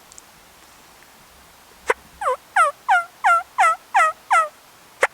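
Turkey yelping: a sharp click, then a run of about seven short notes, roughly three a second, each falling in pitch, with another click near the end.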